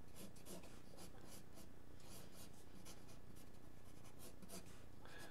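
Faint graphite pencil scratching on drawing paper in many quick, short sketching strokes.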